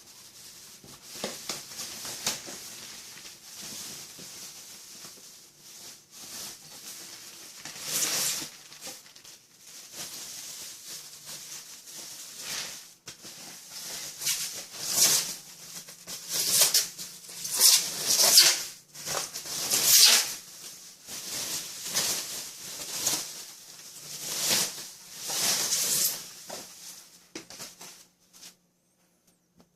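Packaging being handled and unwrapped, rustling and scraping in a string of uneven hissy bursts that grow busier and louder in the second half, then stop near the end.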